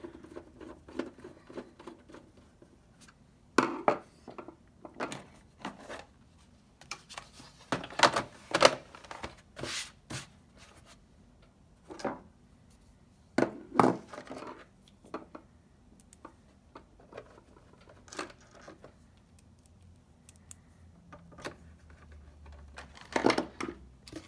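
Scattered clicks, knocks and scrapes of a PS4 console's plastic casing being handled and its glossy top cover put back into place, with screwdrivers set down on a tabletop.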